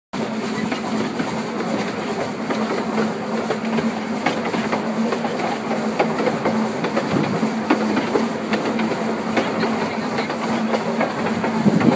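Narrow-gauge steam railway's open passenger carriages running along the track: a steady rumble and low hum from the wheels on the rails, with irregular clicks and knocks. The sound cuts in abruptly at the start.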